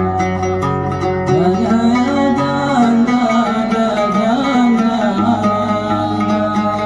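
A man sings a slow traditional dan melody while accompanying himself on the oud, the plucked oud notes under a voice that wavers and ornaments its pitch.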